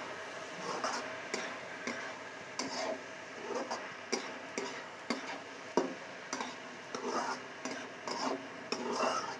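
A spatula stirring and scraping fried rice around a hot wok, with strokes about twice a second over a steady sizzle, as scrambled egg is mixed through the rice.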